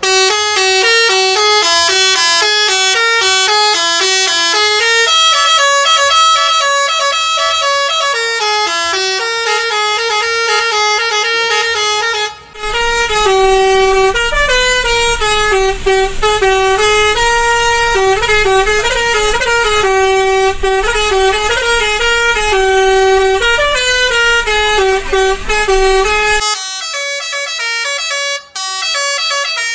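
Indonesian bus telolet horn, a multi-tone musical horn, playing a tune, its pitch stepping up and down from note to note. It breaks off briefly about twelve seconds in and again near the end. A low rumble runs under the middle part.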